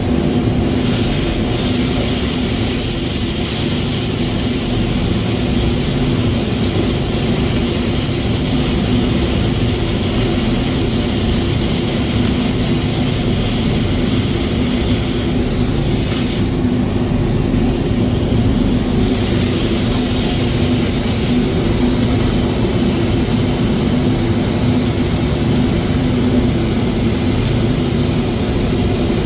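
Welding-site machinery running steadily: a low engine-like drone with a hiss over it. The hiss cuts out for about two seconds a little past the middle, then comes back.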